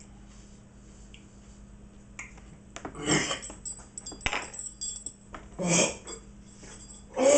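A man choking and coughing hard: three loud coughing fits about two and a half seconds apart, the last the longest, with a strained, falling gagging voice. A few small clicks come before the first cough.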